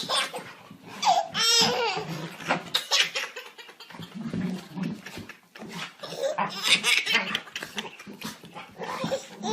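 A baby laughing hysterically in repeated bursts and high squeals.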